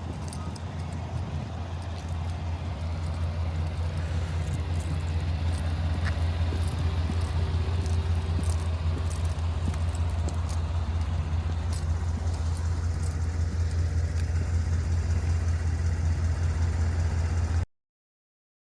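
2015 Cadillac Escalade's 6.2-litre V8 idling steadily as a low hum, with a few faint ticks; it cuts off suddenly near the end.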